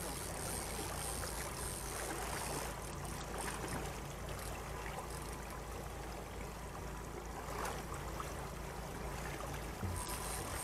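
Steady wash of water along a fishing boat's hull, with a low steady hum underneath.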